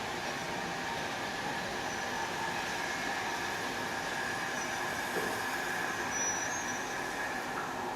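Heritage railway train running along the track, a steady rolling noise with a thin high-pitched whine held throughout.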